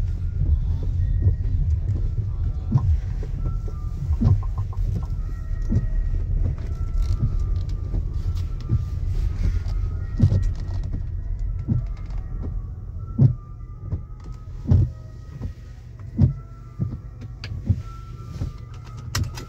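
A car driving, with engine and road rumble and music playing. The music's beat thumps about every second and a half, over short high notes. The rumble eases about two thirds of the way through, leaving the beat more exposed.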